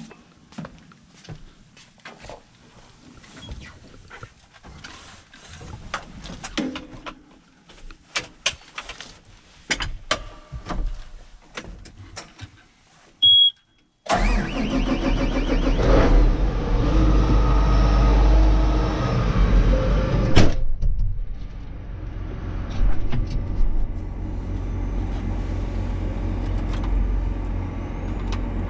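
Clicks and knocks from inside a John Deere 8RX370 tractor cab as the controls are handled, then one short beep. About halfway through, the tractor's diesel engine starts and runs fast for about six seconds, then drops to a steady idle.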